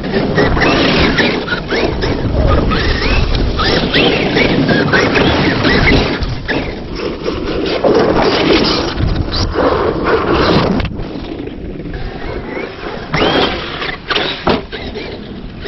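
Electric RC off-road cars being driven hard and jumped: their motors whine and glide up and down in pitch as they rev, over a steady rushing noise. There is a brief quieter stretch about three-quarters of the way through before the whine picks up again.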